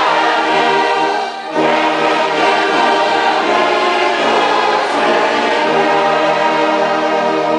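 Orchestra and choir singing a hymn together in sustained chords, with a short break between phrases about a second and a half in.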